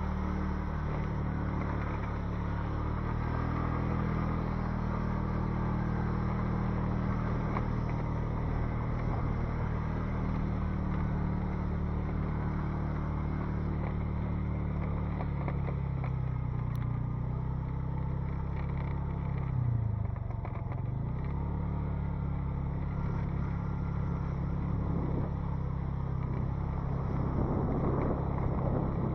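A motor vehicle's engine running steadily, with road noise, while driving. Its pitch drops and then climbs again about twenty seconds in, as the vehicle slows and speeds up.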